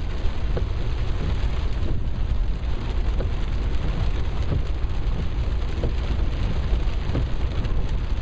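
Rain pelting a moving car and its windscreen, heard from inside the cabin over a steady low rumble of road and tyre noise on the wet road.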